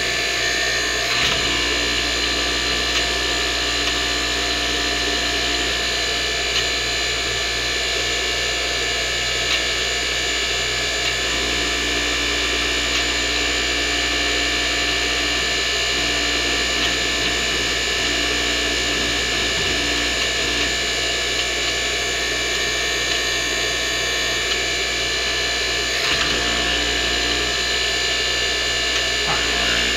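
Powered hydraulic pump running steadily, driving the shop press's cylinder while it pushes a broach through a bored steel piece. A lower hum cuts in and out several times as the press is worked.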